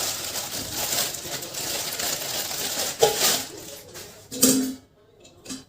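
Handling and rustling, then two clinks of the feeder stand's dog bowls being knocked into place, each with a short metallic ring.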